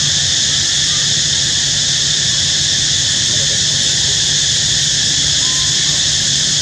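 Steady insect chorus: an even, loud high-pitched hiss that does not change, over a low hum.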